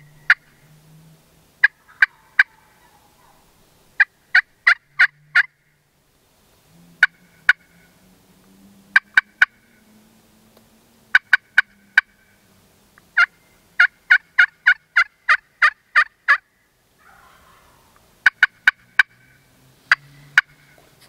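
Turkey yelping: runs of two to about a dozen sharp notes, each dropping in pitch, about four notes a second, with short pauses between runs. The longest run comes about two-thirds of the way in.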